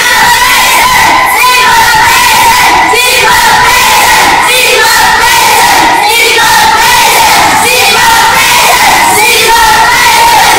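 A loud, unbroken crowd of many young voices shouting and singing together.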